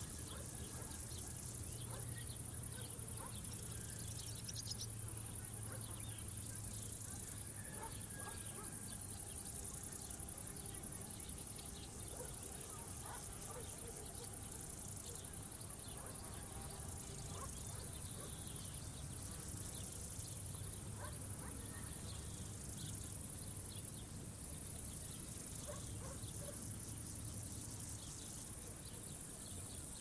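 Field insects chirring in a steady high-pitched buzz that breaks off briefly every few seconds and starts again.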